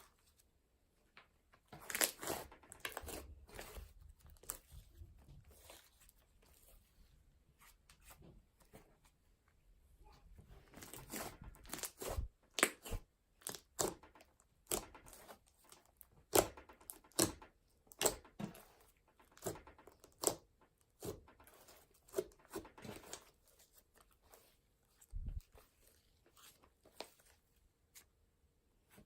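Slime being squished and stretched by hand, giving irregular sticky pops and crackles that come thickest through the middle of the stretch.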